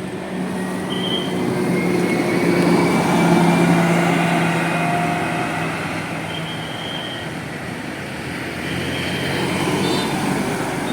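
A heavy road vehicle passing close by: engine hum and tyre noise build to a peak about three seconds in, then slowly fade.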